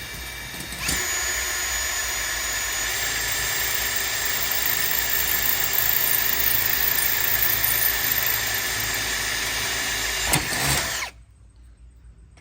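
Power drill running under load, boring a hole through the Weber Smoky Mountain's steel lid for a latch bracket screw. It comes up to full speed about a second in, runs steadily with a high whine for about ten seconds, and stops abruptly near the end.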